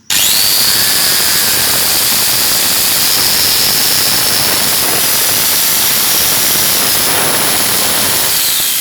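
An angle grinder fitted with a chainsaw adapter bar and chain is switched on and runs at full speed: a loud, steady high whine over a hissing rattle of the chain. Near the end the whine begins to drop as the motor slows.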